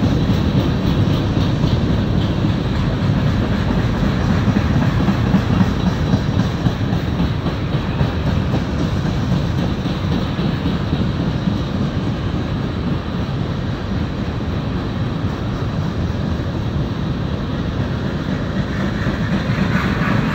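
Norfolk Southern freight train's cars rolling past on the rails, a steady, loud wheel-on-rail noise that stays low in pitch.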